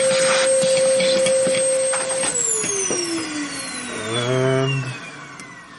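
Electric motor running at steady speed, then switched off a little over two seconds in and whining down, falling steadily in pitch as it coasts to a stop.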